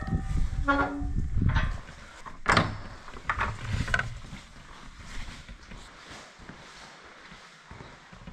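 Old iron gate swung open with a squealing hinge, then a sharp metal clank about two and a half seconds in. Shorter creaks follow near four seconds in as a wooden door is pushed open.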